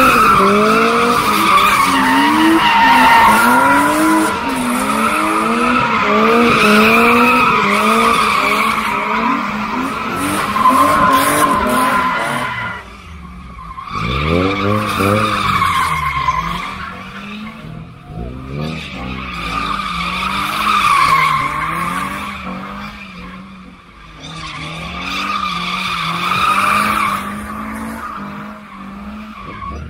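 Cars drifting in tight circles, their tyres squealing continuously while the engines are revved up and down over and over to hold the slide. The noise fades and swells again a few times as the cars circle near and away.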